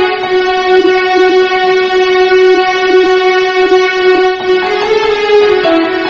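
Background music: one long held note with rich overtones, then short notes stepping upward near the end.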